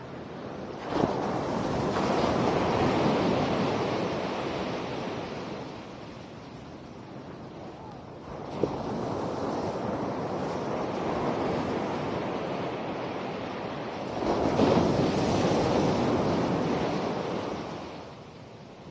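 Ocean waves breaking on a beach: three waves crash in turn, about a second in, near the middle and near the end, each swelling into a rush of surf and then washing back down.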